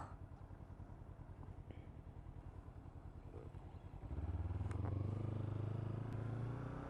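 Kawasaki Z300's parallel-twin engine ticking over at low revs, then opening up and getting louder about four seconds in as the throttle is applied.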